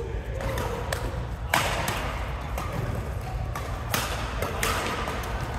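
Badminton rackets striking a shuttlecock: three sharp hits, the loudest about a second and a half in, each trailing off in the echo of a large sports hall.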